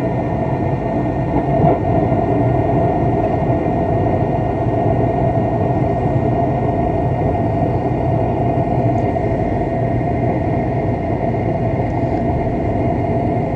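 York 80%-efficiency gas furnace starting a heating call: a motor running with a steady hum and whir, typical of the draft inducer fan purging the unit before the burners light.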